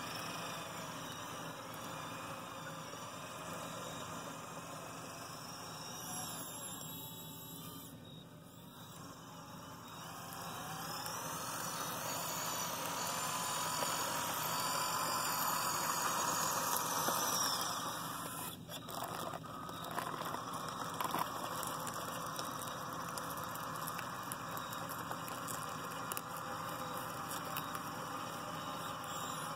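Small electric drive motors and gearboxes of a radio-controlled Cat 963 track loader model whining as it drives, the pitch gliding up and down with speed and loudest past the middle. A few sharp clicks follow shortly after.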